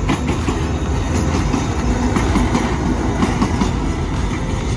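Alsthom diesel-electric locomotive running light engine past at close range, its wheels clacking over the rail joints.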